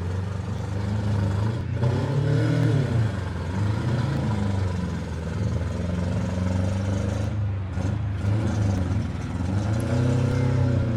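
Demolition derby engines of mini trucks and minivans running hard, revving up and down in swells, with a couple of brief knocks.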